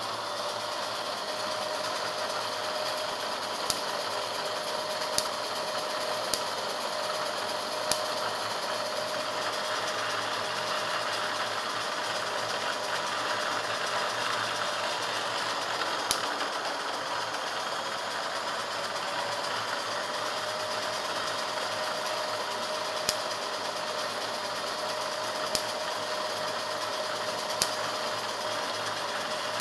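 Small electric fan running steadily with a faint whine, and about eight sharp taps scattered through.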